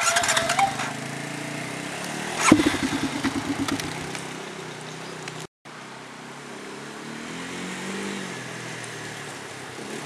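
Four-wheeler ATV engine running as it is ridden over river gravel, with a sharp rev about two and a half seconds in that pulses off over a second or so, then a steadier, quieter run. The sound cuts out for an instant near the middle.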